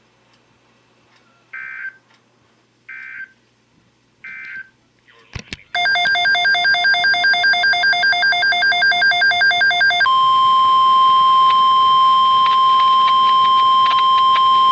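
Emergency alert broadcast tones on NOAA Weather Radio: three short screechy bursts of SAME digital header data about a second apart, then a loud pulsing electronic alarm beep, then the steady 1050 Hz weather radio warning alarm tone. Together they mark the start of a new alert, here a tornado watch.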